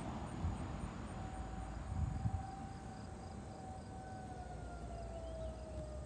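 Faint outdoor tornado warning siren: a steady tone comes in about a second in, then slowly falls in pitch near the end as the siren winds down.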